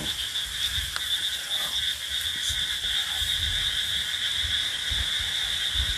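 A steady night chorus of calling frogs, a continuous high-pitched tone with a fainter lower one beneath it, over a low rumbling noise.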